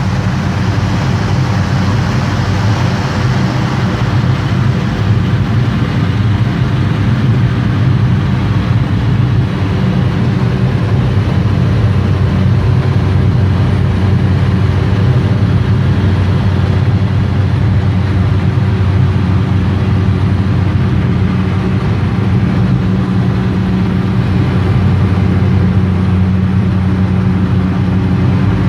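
Cessna 208 Caravan seaplane's turboprop engine and propeller running steadily in flight: a loud, even low drone, with a faint high whine coming in after several seconds.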